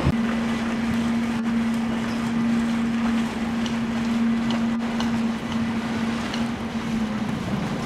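Motor workboat's engines idling, a steady low hum with even noise behind it.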